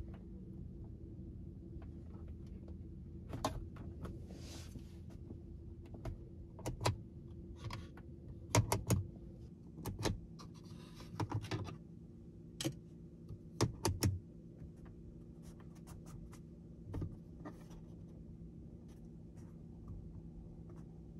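Plastic clicks, taps and scraping as a sunglass holder is pried and pressed into a car's overhead console with a plastic trim tool and its lid is worked open and shut. There are a dozen or so sharp clicks and two short scraping rubs, the loudest around the middle, over a faint steady hum.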